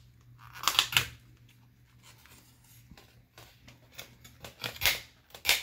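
Plastic rivets on an HP Pavilion X360 laptop palm rest snapping as the keyboard back plate is pried away from it. There are two sharp pops about a second in and two more near the end.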